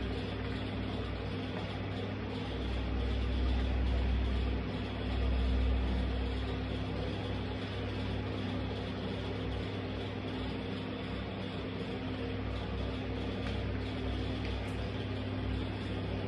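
Steady mechanical hum over an even hiss, with a deeper low rumble swelling twice a few seconds in.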